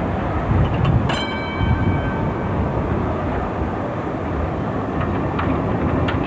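Munich tram with trailer car running past close by: a steady rumble of wheels on rails. A short ringing tone starts sharply about a second in and dies away, and a few clicks come near the end.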